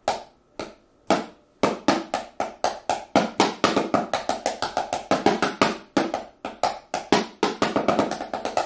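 Drum fills played with sticks on cardboard boxes used as a drum kit, each box a different drum. A few single hits open it, then from about a second and a half in comes a fast, even run of hollow knocks across the boxes.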